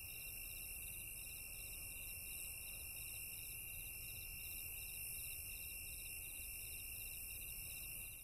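Faint night-insect chorus of crickets: a steady high trill with rapid, evenly repeating chirps just above it and a thin hiss.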